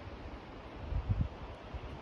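Wind buffeting the microphone in uneven low gusts, the strongest about a second in, over a steady rushing hiss.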